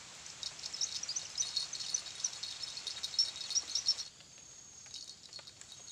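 Rapid, irregular high-pitched chirping of small wild creatures such as birds or insects, over a faint steady background hiss. The chirping turns much fainter about four seconds in.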